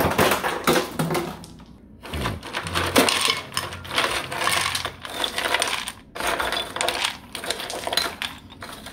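Ice cubes clattering and clinking into a glass dish as they are dropped in by hand, a few cubes at a time.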